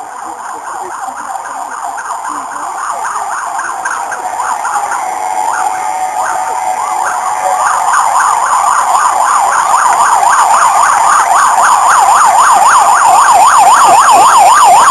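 Fire engine's electronic siren approaching and growing steadily louder, switching from slower sweeps to a fast yelp of about three to four up-and-down sweeps a second.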